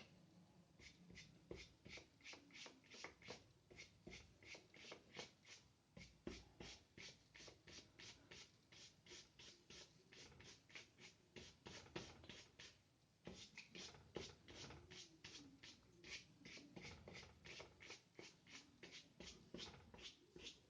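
Faint, quick, short strokes of a wide, almost dry brush with a little white gouache scratching over paper, about three to four strokes a second, with a brief pause about thirteen seconds in.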